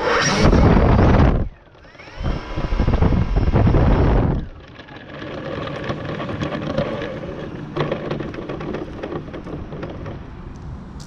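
A model airplane's glow engine being cranked in two short bursts of a little over two seconds each, without catching. After that, a lower steady background.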